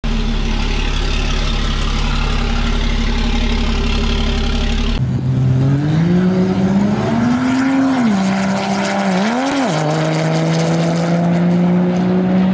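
A 1000 hp 6.7 Cummins diesel in a 4th-gen Ram race truck runs at a steady note for about five seconds. After a cut it launches on a drag run: the engine climbs steadily in pitch, drops sharply at two gear shifts about three and four and a half seconds later, then holds a high steady note on the top end.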